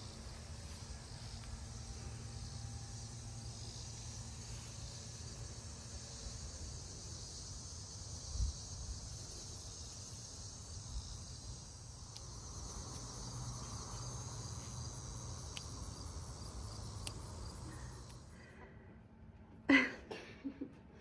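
Steady high-pitched chorus of crickets and other insects over a low rumble, stopping shortly before the end. Near the end comes a brief loud sound, then a fainter one.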